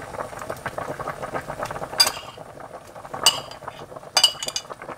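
Spicy chicken stew bubbling at a boil in a stainless steel stockpot while a metal utensil stirs it and clinks against the pot with a ringing note: once about two seconds in, again past three seconds, and in a quick run of clinks past four seconds.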